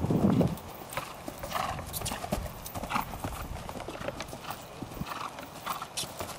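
Hoofbeats of a paint horse cantering over dry arena turf, irregular dull thuds and clicks. A low, heavy thud comes right at the start as the horse lands over a small crossrail jump.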